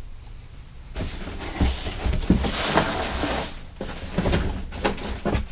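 A large cardboard box and its packaging being handled: cardboard sliding and scraping, with several hollow knocks and thuds as pieces are pulled out and set down.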